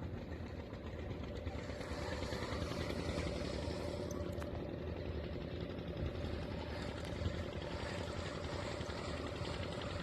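Small fishing boat's engine running steadily at a constant speed.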